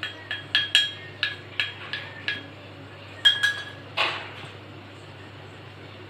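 A metal spoon clinking against a metal pan, with each tap ringing at the same pitch: about eight quick taps in the first two and a half seconds, two more a little after three seconds, then a duller knock about four seconds in, over a steady low hum.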